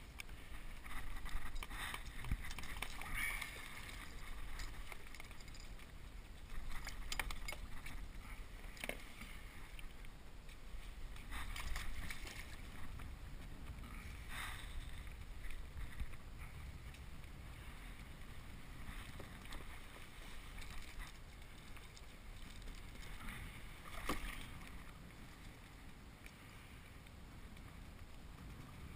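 Water lapping against a kayak hull, with scattered splashes and knocks as a fish is handled at the side of the boat.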